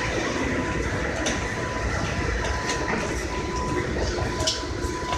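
A departing freight train's Taki 1200 tank wagons rolling past, a steady rumble with a few sharp clicks from the wheels and a thin steady high tone underneath.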